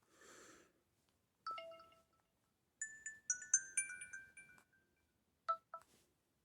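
Huawei phone's built-in alert tones previewed one after another through its small loudspeaker. A single short chime comes about a second and a half in, then a quick run of high, bell-like notes, and two short blips near the end.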